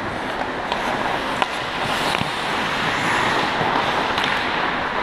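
Ice hockey play on a rink: a steady hiss of skates on ice and arena noise, with a few sharp clacks of sticks and puck.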